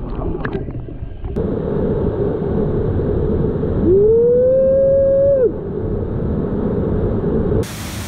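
Waterfall rushing into a shallow pool, a steady roar of falling water, preceded for about the first second by the muffled sound of water heard underwater, with a few clicks. Near the middle a single long whining tone rises, holds for about a second and drops away over the roar.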